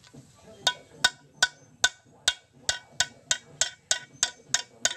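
Hammer blows on metal: about a dozen sharp, ringing strikes, roughly three a second and quickening slightly.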